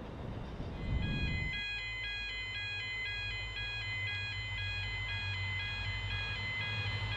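An electronic two-tone warning signal alternating about twice a second, starting about a second and a half in as a rumble dies away, over a steady low hum.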